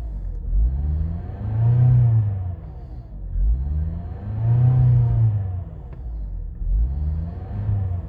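Mazda 6 engine hunting at idle: the revs climb and fall back about every three seconds instead of settling. This is the high, unsteady idle the owner has had since replacing the pistons.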